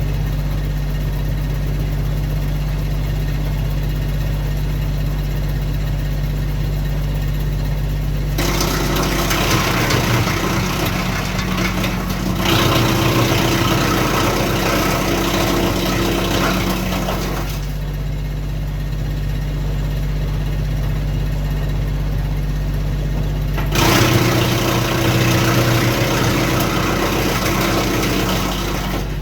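Kioti CK2610 tractor's diesel engine running a Titan BX42S three-point PTO wood chipper. The chipper twice bites into brush and branches for stretches of several seconds each, with a harsh grinding clatter over the steady engine hum.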